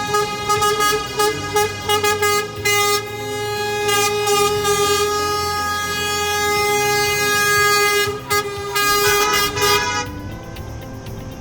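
Coach horns honking, several at once: many short toots and a long held blast overlapping. About ten seconds in, the honking drops away to a quieter level.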